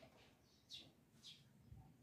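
Faint chirping of a small bird: two short falling chirps about half a second apart, over near silence, with a faint low thump near the end.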